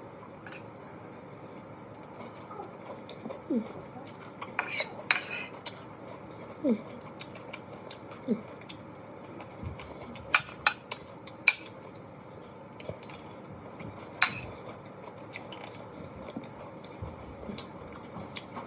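Cutlery clinking and scraping against a plate during eating, in scattered sharp clicks, most of them around five seconds in and between ten and fifteen seconds in.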